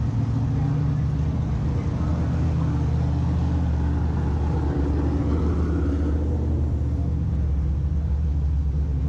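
Car engine running steadily with a deep, even low rumble.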